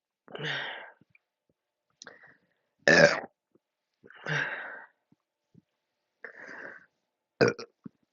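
A woman burping repeatedly after gulping down most of a 2-litre bottle of fizzy soda: about six burps, some loud and short, others softer and longer, the loudest about three seconds in and near the end.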